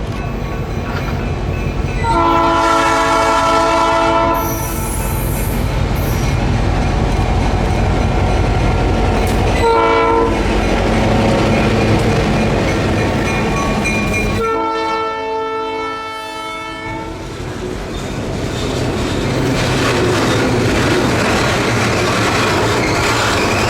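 Ex-Bangor and Aroostook GP7u diesel locomotive sounding its horn for a grade crossing: a long blast, a short one, then a longer one. Under and after the horn are the locomotive's running engine and the clatter of the train's wheels on the rails as it passes.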